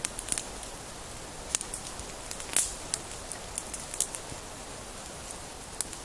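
Small campfire of dry twigs and birch bark crackling, with irregular sharp pops and one louder pop about halfway through.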